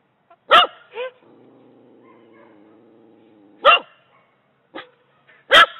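A dog barking: three loud, sharp barks spread a few seconds apart, with a couple of softer barks in between.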